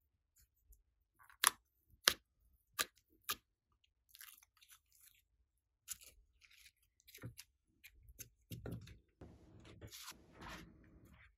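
Glossy slime being handled and laid over foam beads: four sharp sticky clicks in the first few seconds, then soft crackling and crunching that grows denser near the end.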